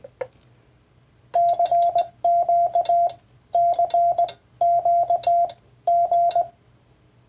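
Hand-sent Morse code on a Vibroplex key: a steady single-pitch tone keyed into dits and dahs, in five quick groups of characters, with a light click from the key at each element.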